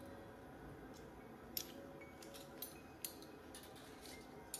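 Quiet room tone with a few small, light clicks, about three, of dishes being handled in a stainless-steel pull-out wire dish rack.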